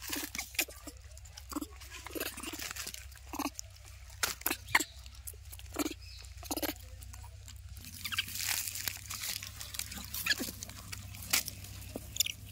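Young rhesus macaques feeding at close range: short low calls among sharp clicks and crunching of food, with a rustling stretch in the second half.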